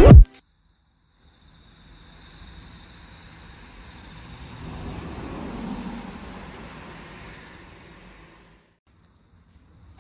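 Night insects chirring in a continuous high-pitched trill over a faint low rumble. The chirring drops out for a moment near the end, then resumes.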